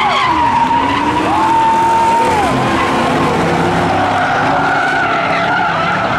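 Two cars racing at full throttle, their engines rising and falling in pitch through the gears, with tyre squeal.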